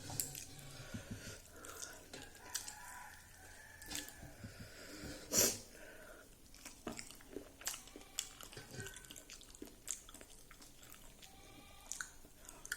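Close-up eating sounds: chewing and crunching of fried dried pork with rice, with scattered soft clicks and mouth smacks and one louder crunch about five seconds in.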